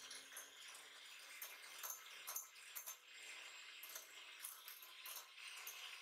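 Grundig electric hand mixer beating eggs and sugar in a glass bowl: a faint, steady motor hum with a rattling whir and irregular light clicks of the beaters against the glass.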